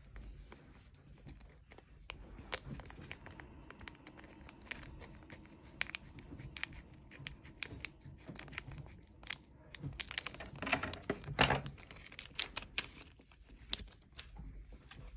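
Scissors cutting across the top of a shiny foil Pokémon card booster pack, with the foil wrapper crackling and crinkling in many short sharp snaps; the crackling is densest and loudest about ten to thirteen seconds in.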